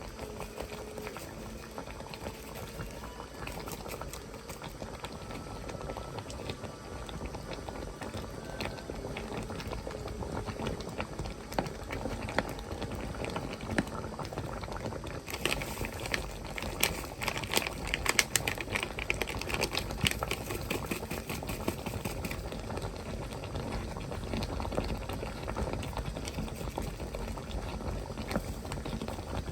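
A pot of curry bubbling on the stove, with a steady patter of popping bubbles and a denser stretch of crackling pops about halfway through.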